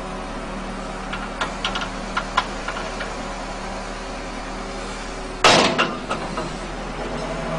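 Backhoe loader's diesel engine running steadily, with a few light knocks from the arm and bucket. About five and a half seconds in, a bucketful of dirt drops into the steel bed of a dump truck with a sudden loud rush that dies away within half a second.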